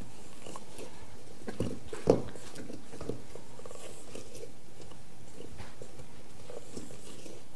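Spatula scraping down the sides of a mixing bowl of thick chocolate cookie dough: irregular scrapes and soft knocks, the sharpest knock about two seconds in.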